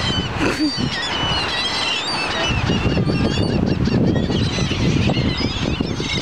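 A flock of gulls calling: many short squawks and cries overlapping all the way through, over a steady rushing noise of surf and wind.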